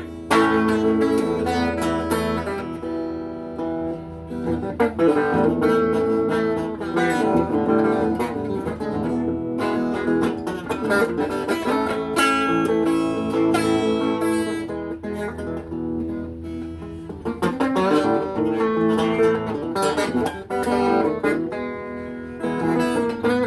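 Acoustic guitar being played, with plucked notes and strummed chords.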